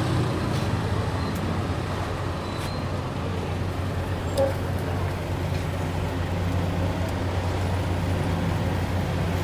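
Steady roadside traffic noise with a low hum underneath, and a few faint clicks.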